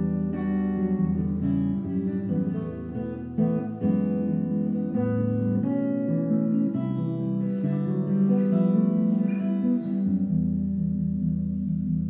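Solo electric jazz guitar with two humbucking pickups, playing a jazz tune as single notes mixed with chords. About ten seconds in the notes stop and a last chord is left ringing and fading.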